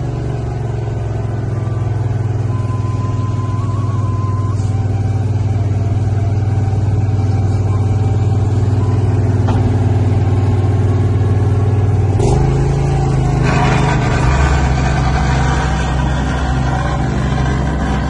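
Asphalt paving machinery running together: the engines of a small ride-on double-drum roller, a plate compactor and the paver make a steady drone. About twelve seconds in the engine note steps up, and a harsher, rougher noise joins a second later.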